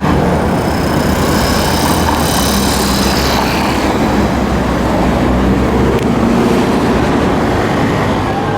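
Loud, steady road traffic rumble of vehicles on a city street.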